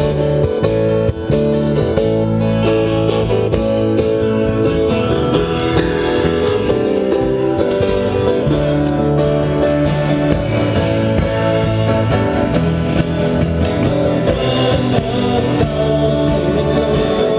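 Live band playing, led by strummed acoustic guitars.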